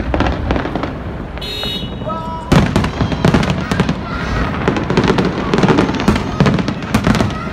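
Aerial fireworks display: shells bursting in rapid, overlapping pops and crackles, with a sudden loud bang about two and a half seconds in and dense crackling after it.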